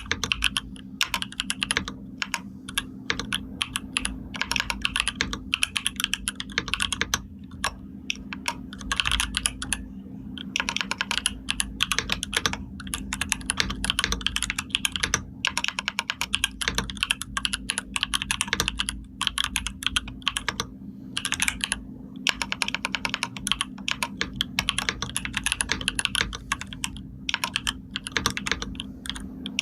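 Typing on a computer keyboard: a fast, steady stream of key clicks, broken by a few short pauses.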